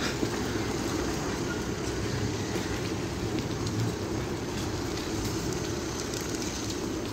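Steady low rumble of a diesel freight train standing at a signal, mixed with wind buffeting on the microphone.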